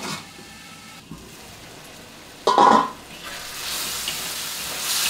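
Pork and pickled mustard greens sizzling in a wok as a spatula stirs them. There is a brief loud scrape about halfway through, and the sizzling grows louder over the last second and a half.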